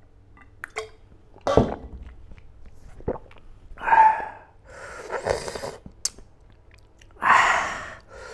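A man eating close to the microphone: chewing and mouth sounds, broken by four short, loud breathy sounds, the loudest near the end.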